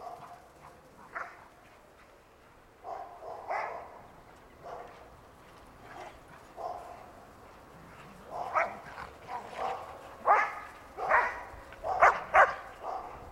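Old English Sheepdogs barking in play: short, scattered barks, then a run of louder barks in quick succession near the end.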